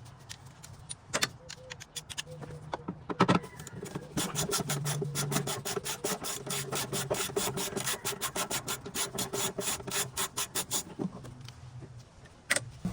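Ratchet wrench clicking in a fast, even run of about five or six clicks a second while a tank mounting bolt is turned, with a few knocks before it starts.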